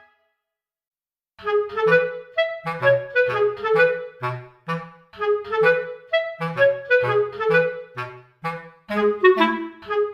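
Background music: a bouncy tune of short, detached notes that starts about a second and a half in, after a moment of dead silence.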